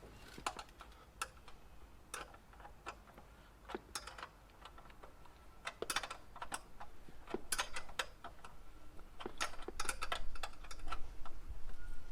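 Irregular metallic clicks and knocks from a bicycle saddle and its clamp being fitted onto the seat post and tightened. They are scattered at first and come thicker and faster from about halfway through.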